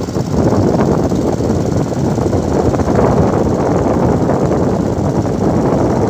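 Small motorboat's engine running steadily under way.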